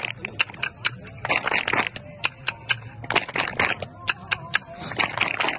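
Khartal, the wooden hand clappers of Rajasthani folk music, played in a steady rhythm: a few sharp clacks, then a short fast rattling roll, three times over.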